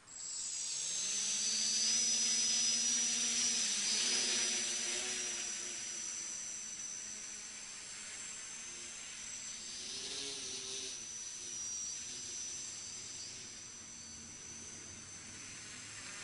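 Small FPV quadcopter's electric motors and propellers buzzing in flight, a high whine shifting in pitch as the throttle changes. It starts suddenly, is loudest about two seconds in, then eases off, with another swell near the middle.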